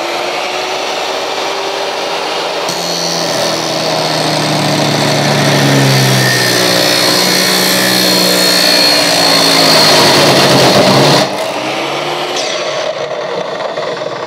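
Makita miter saw fitted with an abrasive cut-off disc running at speed, then grinding through a steel profile from about three seconds in, the grinding getting louder as the cut goes on. The grinding stops suddenly about eleven seconds in as the cut is finished, and the motor runs on and winds down near the end.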